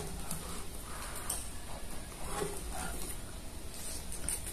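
Soft close-up eating sounds of a person eating hot instant noodles: scattered slurps and mouth noises.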